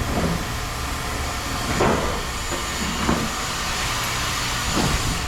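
Steady machinery noise with a hiss, and four short knocks or clanks spread through it.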